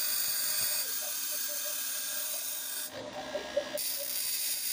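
Homemade angle grinder's small motor running with a high whine while a steel pin is held against the edge of its spinning disc, rubbing and grinding. The high sound drops away for about a second roughly three seconds in, then comes back.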